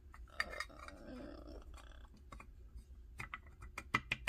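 A small clear plastic jar and its lid being handled, with light clicks and a soft rubbing sound early on. Near the end comes a quick run of sharp plastic taps and clicks.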